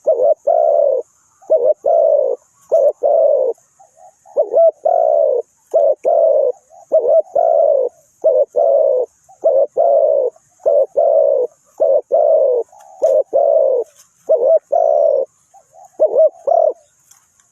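Spotted dove cooing over and over, runs of short low coos with brief pauses between phrases, stopping shortly before the end.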